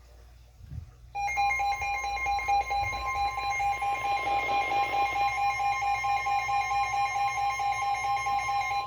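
Emergency Alert System attention signal on a weather radio broadcast: a loud two-tone alarm that starts abruptly about a second in, the lower tone pulsing about twice a second, announcing a new severe thunderstorm warning.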